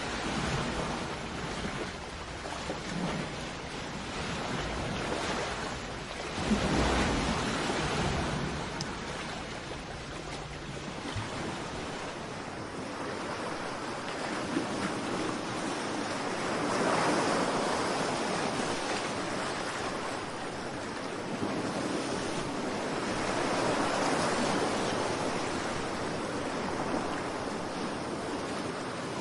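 Ocean waves washing onto a shore, the surf swelling and fading every several seconds, with wind rumbling on the microphone in the first few seconds.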